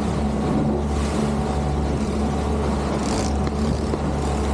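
Boat engine running steadily with a constant low hum, with a brief hiss about three seconds in.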